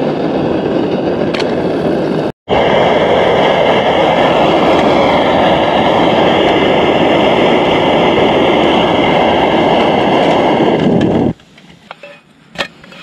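Flatbread dough frying in a hot, oiled pan on the camp stove: a loud, steady sizzling hiss. It breaks off for a moment about two seconds in and stops suddenly near the end.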